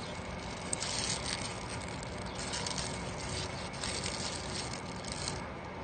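Outdoor background noise picked up by a handheld phone's microphone, a steady hiss with several stretches of brighter rustling hiss and no speech.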